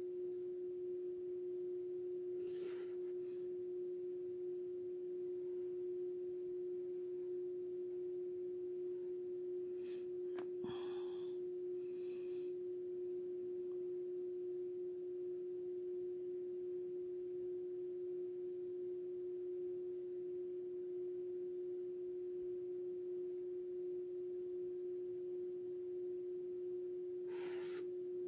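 A steady, unchanging single-pitched hum. A few faint brief noises come over it: one about 3 seconds in, a cluster around 10 to 12 seconds, and one near the end.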